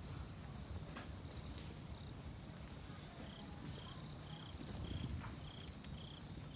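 Wood fire crackling with a few sharp pops, over insects chirping in a steady run of short high chirps; a second insect at a slightly lower pitch joins about three seconds in.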